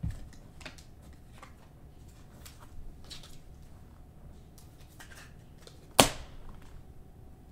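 Trading cards and clear plastic card sleeves being handled: light crinkling and small clicks, with one sharp snap about six seconds in.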